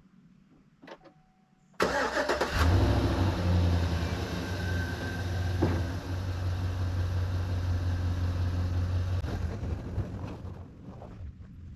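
Van engine cranking and starting about two seconds in, after a click and a brief tone, then running steadily at idle and getting quieter near the end.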